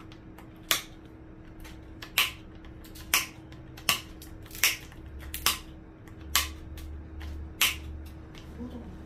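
Sharp metal snips, about eight of them at uneven intervals of roughly a second, as cutters clip the metal pins off an old vacuum tube one by one.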